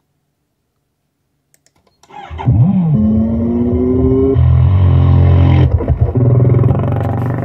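Royal Enfield Classic 500 single-cylinder motorcycle engine, coming in suddenly about two seconds in and then running with a low, steady note whose pitch shifts a few times.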